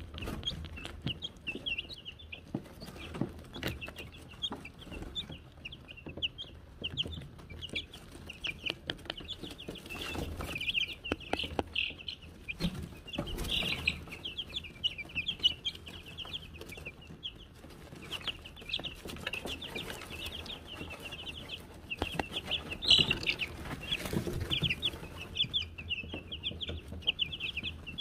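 Wyandotte chicks peeping constantly: many short, high peeps overlapping in a steady stream, with one sharper, louder peep near the end. Scattered taps and rustles from the chicks moving and pecking in the wood shavings run beneath.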